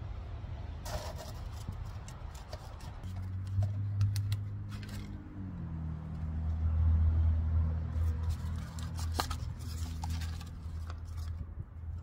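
Gloved hands handling thin black plastic nursery pots and potting soil, with crinkles and scrapes about a second in, near the middle and around nine seconds, over the rumble of wind on the microphone. A low steady motor drone comes in a few seconds in, is loudest in the middle, and fades near the end.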